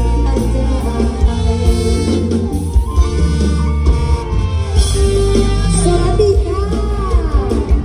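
Loud Isan mor lam band music over a concert sound system: a heavy bass beat under instruments and a singing voice that slides in pitch.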